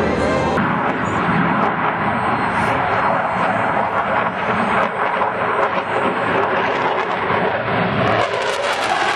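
F-16 Fighting Falcon fighter jet's Pratt & Whitney F100 turbofan, a loud, steady rushing jet noise as the aircraft flies display manoeuvres overhead. The hiss changes abruptly about half a second in and again near the end.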